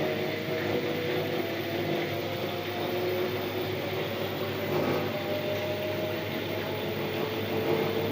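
LG F1296WDS washing machine running with a steady whine that drifts slightly in pitch over a rumbling vibration. The vibration comes from the machine's right side panel, as if it were loosely screwed on, although the machine is levelled and it happens even when empty.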